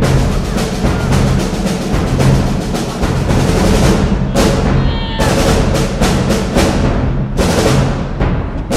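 Background music driven by heavy, fast drums over a steady bass, the drum hits breaking off for about a second halfway through.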